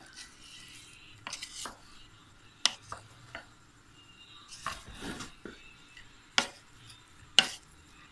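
Spoon mixing cooked rice in a metal pot: soft scraping of the rice and utensil against the pot, with three sharp knocks of the spoon on the pot.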